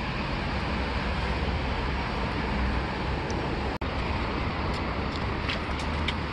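Steady outdoor traffic noise, a low rumble with hiss, with a few faint clicks of bicycle parts being handled. The sound briefly drops out about four seconds in.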